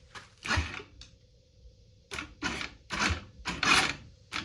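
Electric starter on a GY6 go-kart engine bumped in short, uneven bursts, about six in four seconds, each cutting off quickly, while the engine is being tried again after a no-spark repair.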